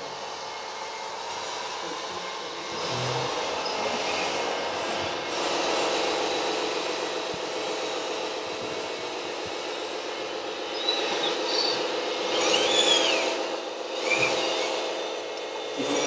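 Whirring and grinding of the small electric motors and gearboxes of radio-controlled model construction machines working, with a short high squeal that rises and falls about twelve seconds in.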